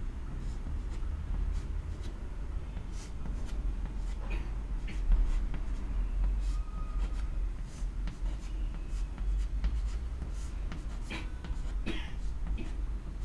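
Chalk on a blackboard as arrows are drawn: a scatter of short taps and scratches, over a steady low hum.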